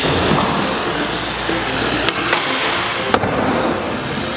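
Skateboard wheels rolling on a smooth concrete floor, with a few sharp knocks about two and three seconds in.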